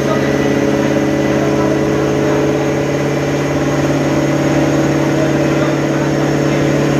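Supercharged V8 of a 2008 Shelby GT500, with a 2.3-litre TVS blower, running steadily at about 2,100 rpm under light part-throttle load on a chassis dyno, turning the rollers at about 48 mph. Pitch and level hold even throughout.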